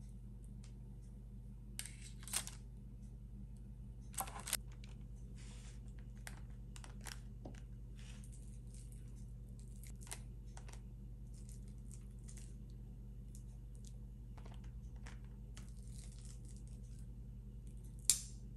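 Scattered short rustles and small clicks, as of things being handled, over a steady low hum; the sharpest click comes near the end.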